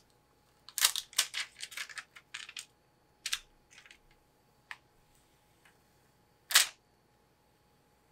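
Short clicks, crackles and taps of hands handling a new laptop battery as its top adhesive liner is peeled off and the cells are pressed into the case. They come in a dense run in the first couple of seconds, then scattered, with one louder click a little past the middle.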